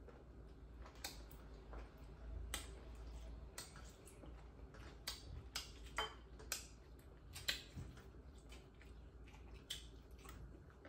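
Faint eating sounds: irregular small clicks and smacks of people chewing pork offal, and of fingers and food touching plates and bowls.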